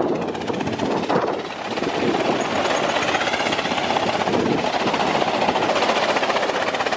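Go-kart engines running as karts drive round the track, a fast rattling buzz that dips briefly and then holds steady and loud from about two seconds in.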